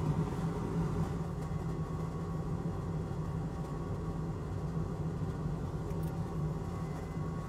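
Steady low hum of a running motor or fan, even throughout with no distinct events.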